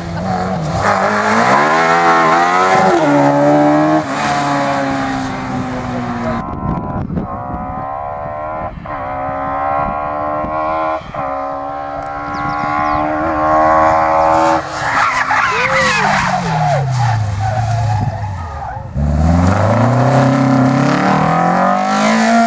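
Seven-style clubman sports car engines at full throttle on a hillclimb, revving up through the gears with the pitch dropping at each gear change, as several cars run past one after another. Near the end one car's note falls away, then climbs hard again.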